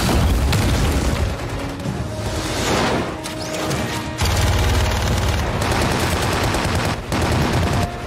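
Action-film sound mix: orchestral score under rapid bursts of automatic gunfire and heavy booms. About four seconds in, a deep rumble cuts in suddenly.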